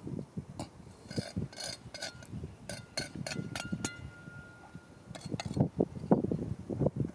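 A quick run of hard clicks and clinks, several leaving a short high ringing note, then softer crunching steps over rocky, gravelly ground near the end.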